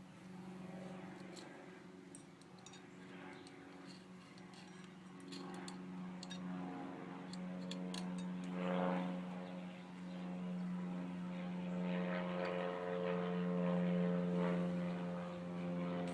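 A distant engine drones steadily at a constant pitch and grows slowly louder. Light clicks, like small metal parts being handled, come mostly in the first half.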